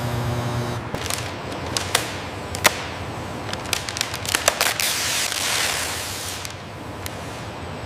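A steady low hum stops about a second in. Then comes a series of sharp cracks and snaps at uneven intervals, the loudest near the middle, with a hissing rush that swells and fades in the second half.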